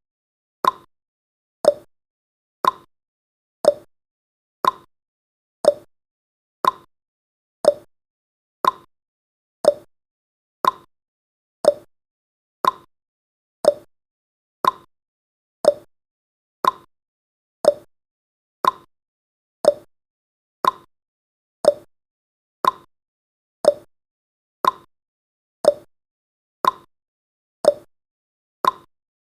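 Countdown timer's ticking sound effect, one sharp tick a second, alternating between a higher and a lower tick like a clock's tick-tock.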